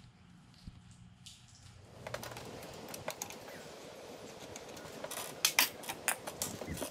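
Light clicks and taps of hands handling small parts on the diesel injection pump, setting a plastic funnel into its oil fill port, with a quick cluster of sharper clicks a little after midway. A faint steady hum sits under the first two seconds.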